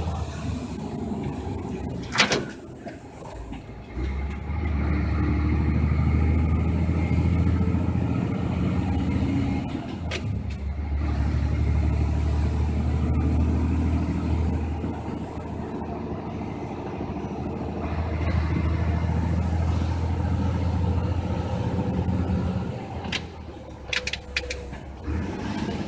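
Heavy truck engine heard from inside the cab, a low drone that pulls up in long stretches and drops away briefly between them. A faint high whine rises and falls over each pull. A few sharp clicks come from the cab, the loudest about two seconds in.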